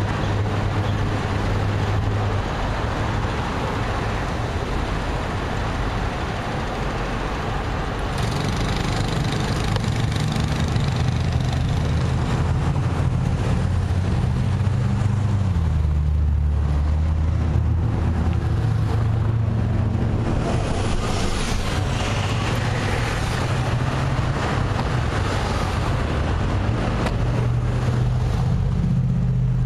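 Road traffic at an intersection: car engines running close by with a steady low hum, and vehicles passing.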